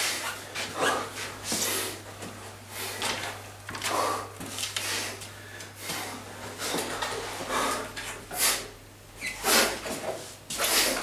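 A person breathing hard: a dozen or so short, noisy breaths, unevenly spaced about one a second.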